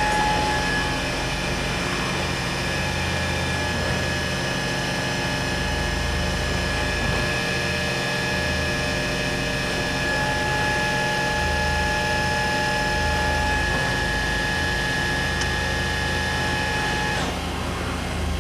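Matsuura H.Plus-300 horizontal machining center running its demo program: a steady hum of motors with a high steady whine and a low rumble that swells and fades, the whine stopping about a second before the end.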